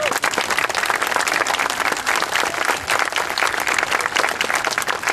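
Crowd applauding: dense, steady clapping from many spectators.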